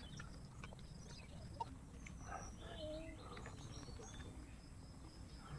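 Faint hand-eating sounds: chewing and fingers working rice on a banana leaf, with scattered small clicks. A brief wavering animal call sounds about halfway through.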